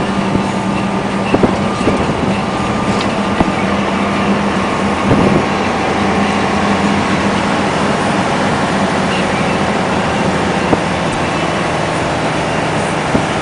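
Diesel engine of a UD Trucks Quon dump truck running with a steady, loud drone. The engine note drops slightly about six seconds in, and a few short knocks sound over it.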